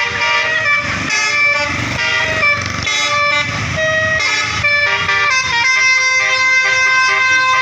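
Bus telolet horn, a multi-tone air horn, playing a quick tune of changing notes. For the last two seconds or so it holds one steady chord.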